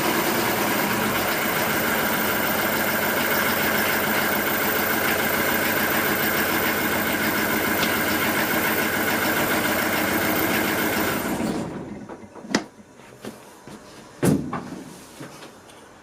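Boat engine running steadily, then shut off about three quarters of the way through; a few separate knocks follow.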